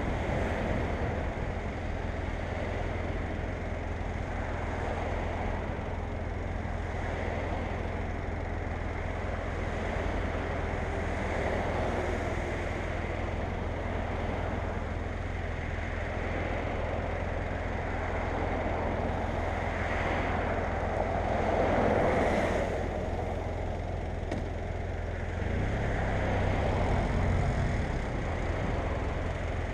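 BMW F800GS parallel-twin engine running at road speed, under a steady rush of wind over the microphone. The engine note changes about 26 seconds in.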